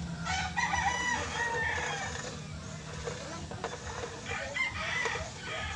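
A rooster crowing twice, a long crow near the start and another about four seconds in.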